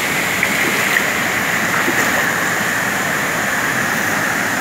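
Rain-swollen river rushing over rocks below a waterfall: a steady, loud rush of churning water.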